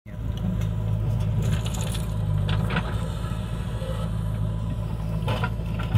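Steady diesel engine hum of a JCB 3DX backhoe loader at work, with short crunching bursts of soil as its bucket tips earth into a tractor trolley and then bites back into the dirt heap, about a second and a half, two and a half and five seconds in.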